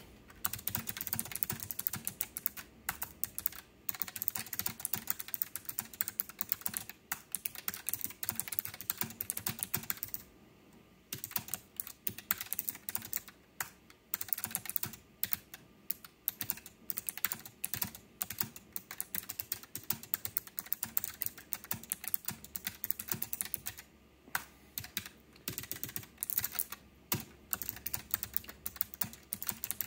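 K1 mechanical keyboard with clicky blue switches being typed on firmly: a fast, continuous run of sharp key clicks, pausing briefly about ten seconds in and again near 24 seconds.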